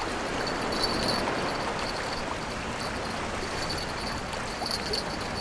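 Choppy sea water rushing and washing along a concrete sea wall: a steady rushing noise.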